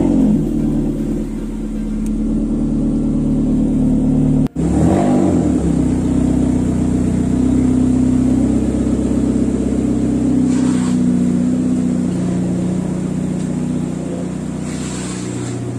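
Ford Fiesta engine with a straight-piped exhaust, just fired up and idling steadily and loudly. It is heard first from inside the cabin, then from outside the car after a brief break about four and a half seconds in.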